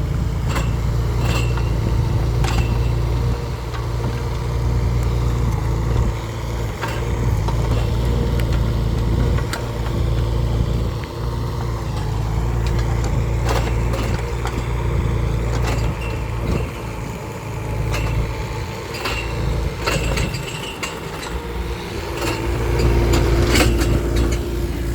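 Mini excavator engine running steadily, with scattered sharp clanks and knocks over it.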